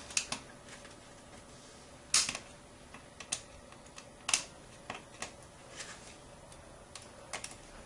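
Scattered sharp clicks and taps, about ten at irregular intervals, the loudest about two and four seconds in, from a screwdriver and wire being worked at a small terminal screw as a transformer lead is hooked on and tightened down.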